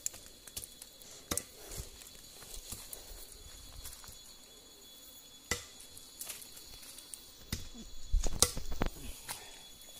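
Scattered sharp clicks and rustles from hands pulling apart freshly killed game meat on a banana leaf, busiest and loudest about eight seconds in. A steady high insect drone runs underneath.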